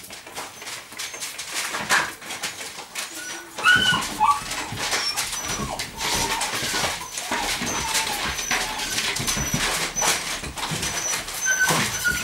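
A Rhodesian Ridgeback puppy playing: a few short, high whines about four seconds in and again near the end, over many sharp clicks and scuffs of paws and claws on a tiled floor.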